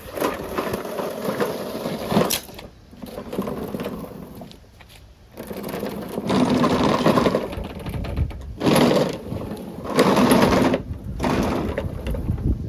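A walk-behind lawn mower being wheeled along, its wheels and deck rattling over the ground in several stretches with short pauses between them.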